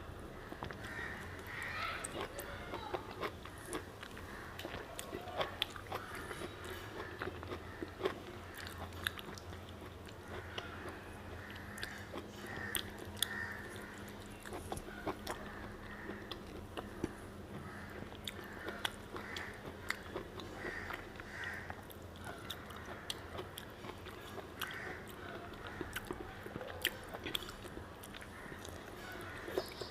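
Close-up eating sounds of a person biting into and chewing ripe Himsagar mango, with many short wet mouth clicks and smacks scattered throughout.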